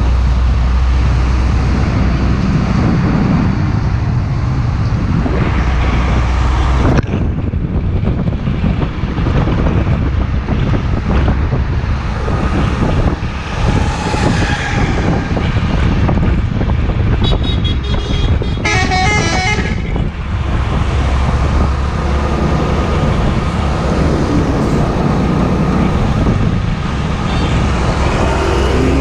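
Heavy trucks running past on a highway, with a constant low engine rumble and tyre noise. About seventeen seconds in, a truck sounds a loud multi-tone horn for around three seconds.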